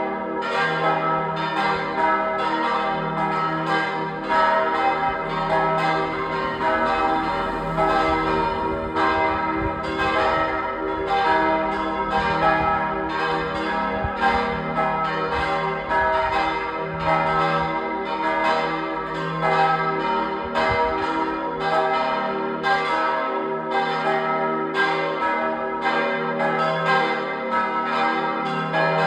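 Several church bells ringing together in a full peal, their strikes coming out of step more than once a second over a lasting hum of overlapping tones.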